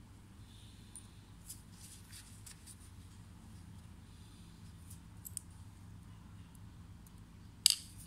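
Light metallic clicks and scrapes as a LOOK Keo Blade pedal spindle and its bearing are handled and worked with a small hand tool, with one sharp, much louder click near the end.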